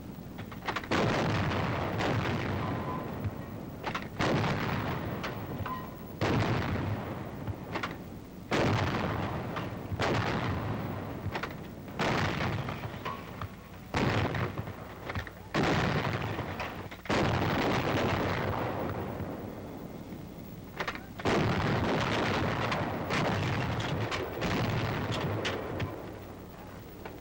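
A battery of 90mm anti-aircraft guns firing repeatedly: more than a dozen heavy reports, each starting sharply and dying away in a long fading echo, one to two seconds apart. There is a pause of about four seconds two-thirds of the way through, then the firing resumes.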